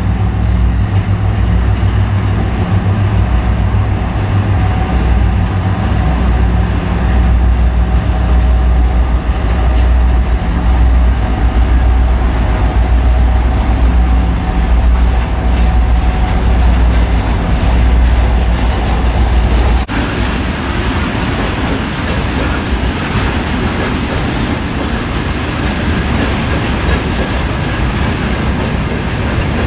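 2M62U two-section diesel locomotive with its two-stroke V12 diesel engines running as a freight train passes, a deep steady hum. About twenty seconds in the sound cuts abruptly to a noisier rumble of a train rolling along the track.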